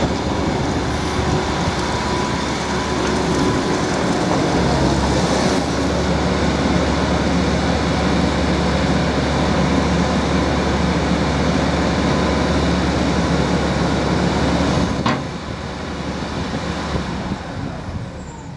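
Diesel engine and hydraulics of a 1999 Cat M315 wheeled excavator running steadily at working revs while the boom and bucket are worked. About fifteen seconds in there is a sharp click, and the engine noise drops and then fades further near the end.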